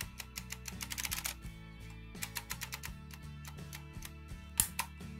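Hand-held embossing label maker clicking as letters are dialled and pressed into the tape: runs of quick clicks, with a louder single click near the end, over background music.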